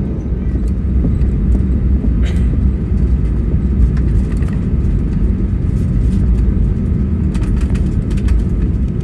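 Steady low rumble of airliner cabin noise aboard an Airbus A320neo, with a few faint clicks and rattles mixed in.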